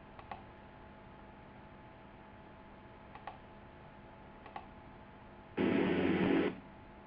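A few faint mouse clicks over a low hiss, then about a second of sound from the Dune software synthesizer playing back in Cakewalk, starting and cutting off abruptly: the computer can barely run the heavy synth.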